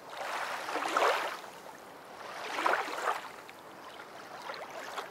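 Water sound effect: rushing, washing water that swells loudest about a second in and again just before three seconds, then settles lower.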